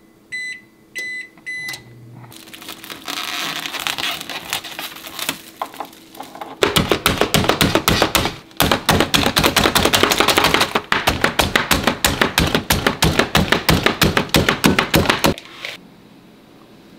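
Oven control-panel keypad beeping several times as buttons are pressed. Then a hand-pushed plunger food chopper clacks rapidly for about nine seconds, chopping a crumb topping, and stops suddenly near the end.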